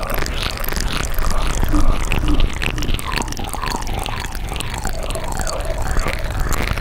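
Close-miked ASMR mouth sounds: a dense, continuous run of wet clicks and smacks from the lips and tongue.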